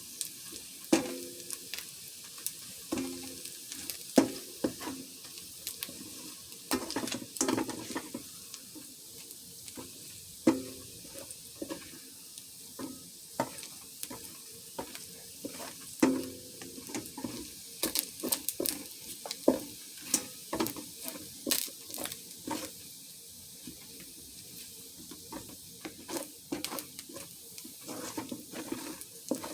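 Crab meat frying in butter in a pan, with a steady sizzle. A utensil stirs it, scraping and knocking against the pan at irregular moments, and some knocks leave the pan ringing briefly.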